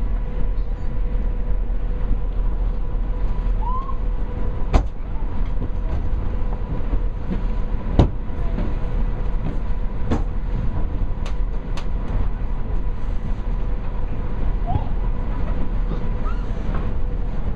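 Steady low rumble of wind buffeting the microphone and the machinery of the Condor Vitesse, a high-speed catamaran ferry, heard on its open deck under way, with a steady hum and several sharp clicks.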